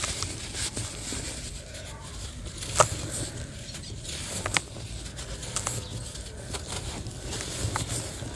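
Chunks of reused sand-cement being crumbled by hand, with fine powder pouring into a bowl of dusty sand: a soft hiss of falling grains with scattered crunches and small cracks, the sharpest about three seconds in and again about four and a half seconds in.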